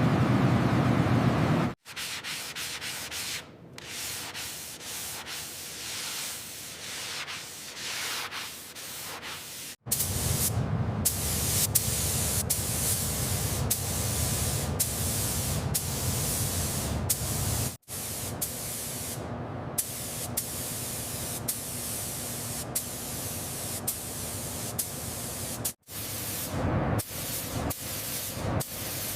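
Steady scraping and hissing noise, like abrasive work on metal, in four stretches that cut abruptly one to the next, with scattered clicks.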